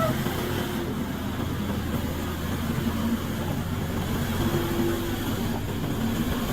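Backhoe loader's diesel engine running steadily, with a constant low rumble and a few wavering tones above it.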